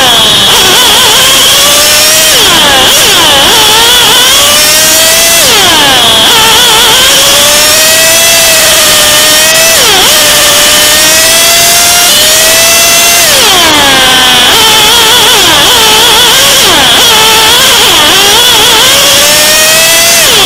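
Go-kart engine at close range, running hard around a circuit: its pitch climbs steadily on the straights and drops sharply each time it brakes for a corner, several times over. The sound is very loud throughout, close to clipping.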